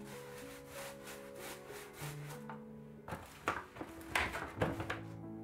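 Paintbrush rubbing and scraping in a paint tray, a quick cluster of strokes in the second half, over background music with long held notes.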